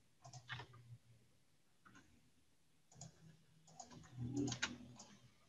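Faint clicking of computer keyboard keys in a few short flurries, the busiest about four seconds in.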